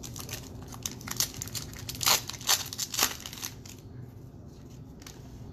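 A baseball card pack's wrapper being torn open and crumpled by hand: a run of sharp crinkles and crackles over the first three seconds or so, loudest near the middle, then quieter handling.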